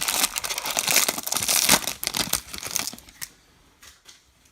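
Baseball card pack wrapper crinkling and tearing as the pack is opened, for about three seconds, then a few faint taps.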